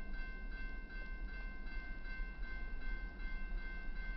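Railroad grade-crossing bell ringing steadily, struck about two and a half times a second: the crossing warning is active for an approaching train. A low rumble runs underneath.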